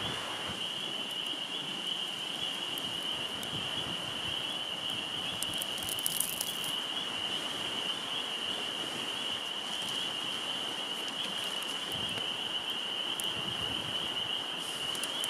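Falafels frying in a pan on a camp stove: a steady sizzle with scattered small pops, over a steady high-pitched whine.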